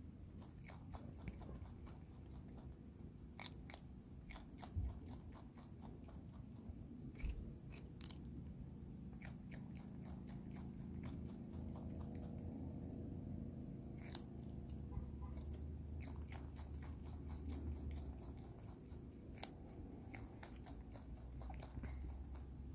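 Brushtail possum chewing a piece of raw carrot held in its paws: a long run of small crisp crunches and mouth clicks, coming in quick clusters.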